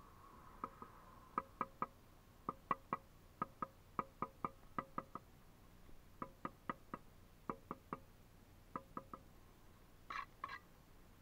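Steel trowel tapping bricks down into their mortar bed on a brick arch: sharp, ringing taps in quick clusters of two or three. About ten seconds in there are two short, rougher scraping strikes.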